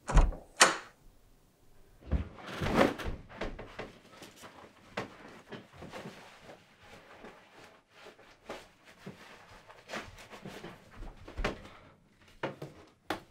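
A door opening and shutting in a small room, heard as two sharp knocks at the very start. About two seconds in comes a soft thud and rustle as a bag is dropped on the bed, then clothes rustling and small clicks as a man handles his shirt and belt, with light footsteps.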